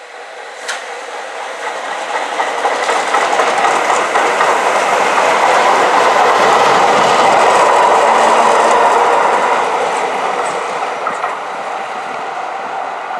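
Tyne and Wear Metro electric train approaching and passing close by, its wheels clattering over the rail joints. The sound builds to its loudest in the middle, then falls away as the train moves off.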